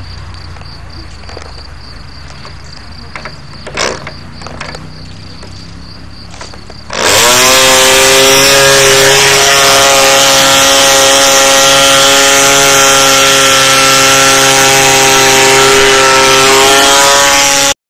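Small two-stroke model aircraft engine catching about seven seconds in, after a few clicks and a short burst of sound, then running flat out with a loud, steady, high-pitched buzz.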